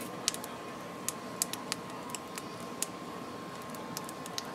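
Irregular sharp crackles and pops from dried squid grilling in a wire basket over glowing charcoal, over a steady background hum.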